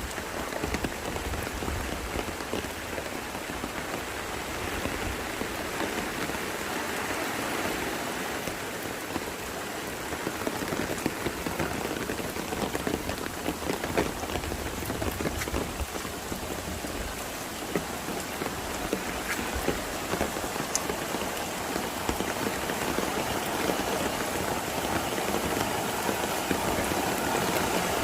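Steady rain falling, a dense hiss sprinkled with many small drop ticks, growing a little louder near the end.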